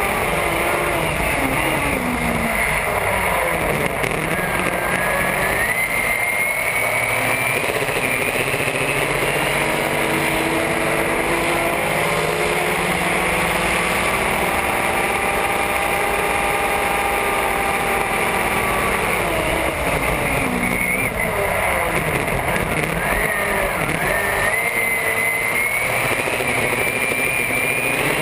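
Supercharged race boat engine running hard, with rushing water and spray. Twice the revs sag and then climb back with a rising whine, about 3 seconds in and again around two-thirds of the way through.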